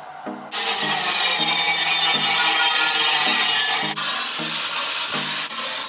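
Grinder working steel railing pipe: a loud, steady abrasive hiss that starts suddenly about half a second in and breaks off briefly near four seconds, over background music with a steady beat.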